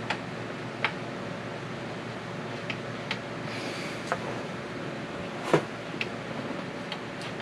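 Scattered clicks and knocks of hands handling a Benjamin Bulldog 357 air rifle's parts, about nine sharp taps spread out, the loudest about five and a half seconds in, with a short rustle a little after three seconds. A steady hum runs underneath.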